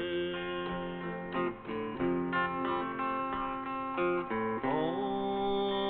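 Acoustic guitar playing a mix of picked notes and strums, with some notes bending in pitch near the end.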